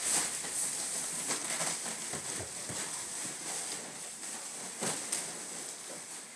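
Black plastic trash bag crinkling and rustling as the person crouched inside it shifts around, with irregular crackles and a couple of sharper ones about five seconds in.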